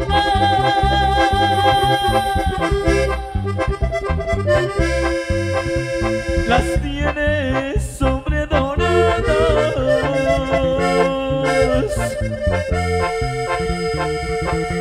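Live regional Mexican band playing an instrumental passage, with a held lead melody over a steady bass beat, heard through a large PA system.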